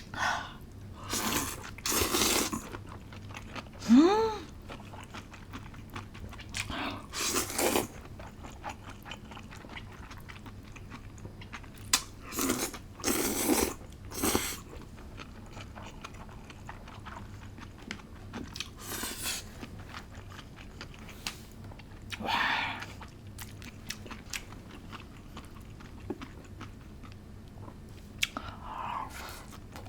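Close-miked crisp crunching and chewing of seasoned old cucumber (nogak), with several loud bites spaced irregularly and quieter chewing between them.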